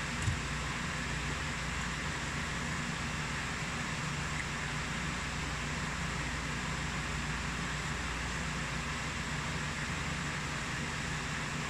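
Steady hiss with a low hum underneath: room background noise. There is one brief knock shortly after the start.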